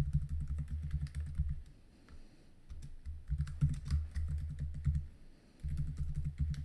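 Typing on a computer keyboard: quick keystroke clicks in three runs with short pauses between them, and a low hum sounding along with each run.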